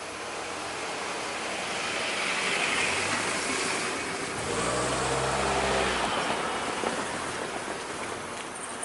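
Train running noise, a broad rumble that swells and eases, with a low engine-like hum rising for about a second and a half past the middle.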